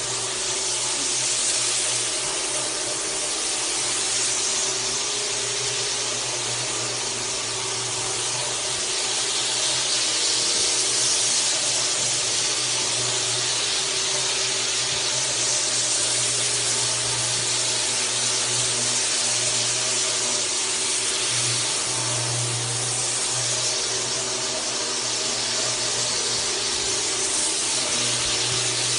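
Single-disc rotary floor buffer running steadily as it buffs a parquet wood floor smooth: a constant motor hum under a bright hiss from the pad on the wood.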